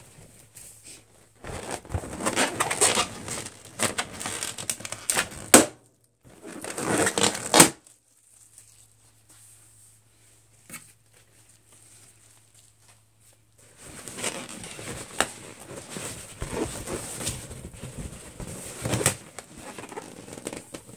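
Inflated latex balloons being squeezed, rubbed and scratched with fingernails, a squeaky rubbery scraping that comes in three stretches with quiet gaps between. Two sharp snaps stand out about two seconds apart in the first half.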